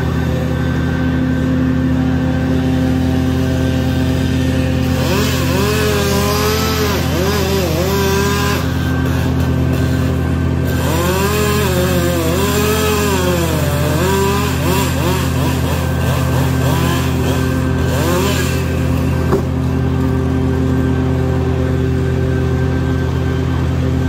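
A chainsaw revving up and down as it cuts, starting about five seconds in and stopping about eighteen seconds in, with a short break about halfway. Under it an engine runs steadily throughout.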